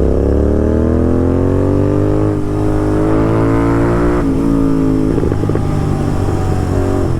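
Royal Enfield Continental GT 650's parallel-twin engine, fitted with a Red Rooster aftermarket exhaust, accelerating with a rising pitch for about four seconds. The throttle is then closed and the exhaust crackles and pops on the overrun, the crackles that come while the revs stay above about 4000 rpm on a barely open throttle.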